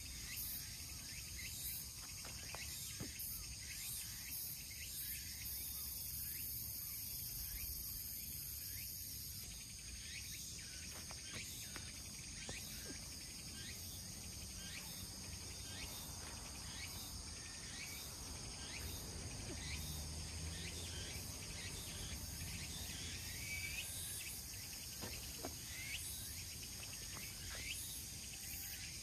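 Steady high-pitched chorus of insects trilling in the surrounding vegetation, running without a break.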